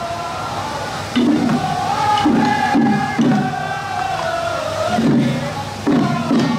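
Procession music with a crowd chanting in short rhythmic bursts, under a long, wavering high note.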